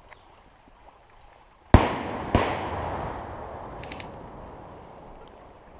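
Two loud blasts about half a second apart, the first the louder, each followed by a long rolling echo that fades over a few seconds. The sound is typical of pyrotechnic bangs such as airsoft grenades or battlefield pyro, not rifle fire.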